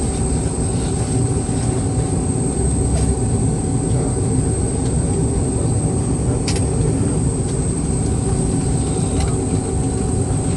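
Boeing 717-200's tail-mounted Rolls-Royce BR715 turbofan running steadily on the ground, heard inside the cabin from a window seat right beside the engine: a constant low rumble with a thin high whine over it.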